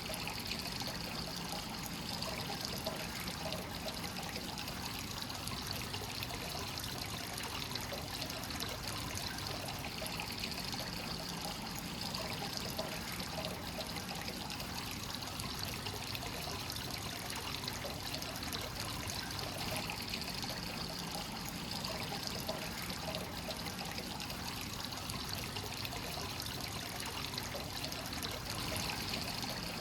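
Hot-spring water from a free-flowing source running steadily into a bath: a continuous trickling pour with a constant fine splashing.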